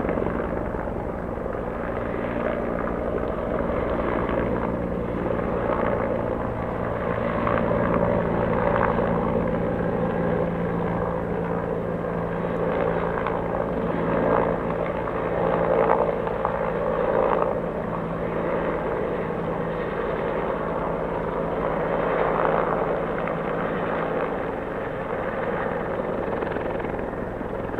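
Helicopter flying past overhead, its rotor and engine running steadily, a little louder about halfway through.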